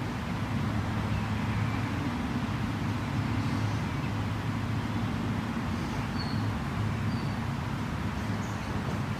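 Steady outdoor ambience at a creek: a low, even rumble, with a few faint short bird chirps about six and seven seconds in.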